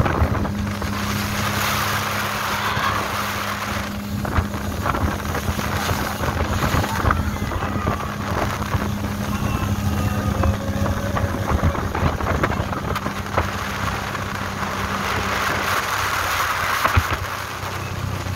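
Sea Ray motorboat under way, its engine running with a steady low hum, mixed with the rush of water past the hull and wind on the microphone, the rushing louder about a second in and again near the end.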